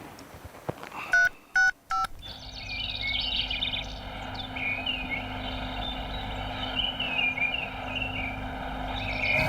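Three short telephone keypad beeps about a second in, a number being dialled. After them comes a steady low hum with high twittering chirps over it.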